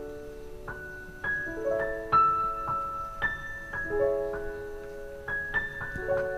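Background music: a slow melody of single notes over held chords, in a piano-like sound.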